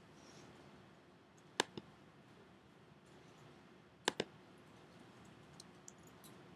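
Computer mouse button clicked twice, a few seconds apart, each a sharp click followed by a softer one, placing points of a polygonal lasso selection in Photoshop. Faint steady room hiss underneath.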